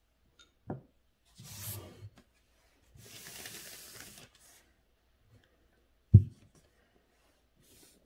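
Sheet of calligraphy paper being shifted and slid across the desk, rustling briefly and then rubbing for about a second. A dull knock comes a little under a second in, and a louder thump about six seconds in.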